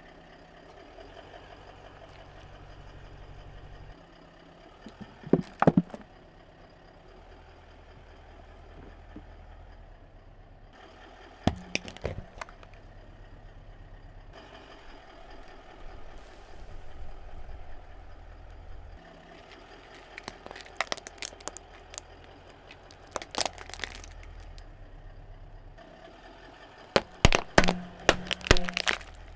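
Car engine idling while a tyre rolls slowly over plastic toys and objects, which crack and crunch under it in five short clusters of sharp cracks. The last and loudest cluster comes near the end, as the tyre squashes filled balloons.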